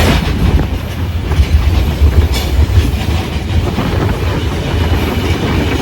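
Mauritanian iron ore train's wagons rumbling and clattering along the rails, a loud, steady deep rumble heard from aboard an open ore wagon.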